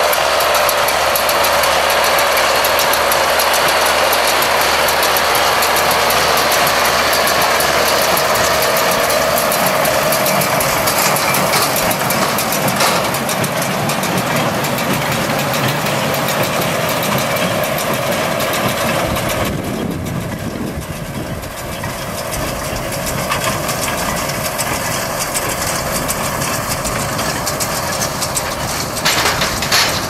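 John Deere 6110 tractor's diesel engine running steadily while the International Harvester 440 small square baler it tows works, baling straw. About two-thirds of the way through, the sound becomes quieter and duller.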